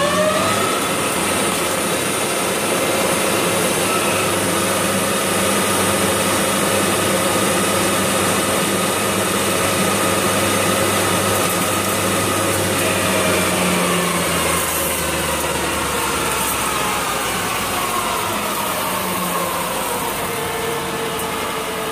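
Bridgeport EZ-Path CNC lathe running a cut on the end face of a spinning bar under constant surface speed control. The spindle whine climbs in pitch right at the start, holds steady, then falls gradually through the second half as the spindle speed changes with the cutting diameter.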